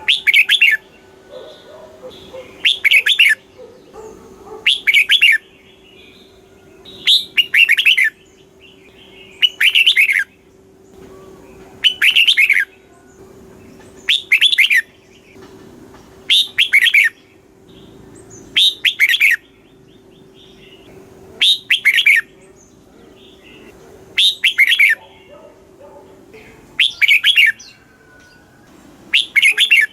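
Red-whiskered bulbul singing: short, bright whistled phrases, each given twice in quick succession (the doubled song), repeated about every two seconds. A faint steady hum runs underneath and stops near the end.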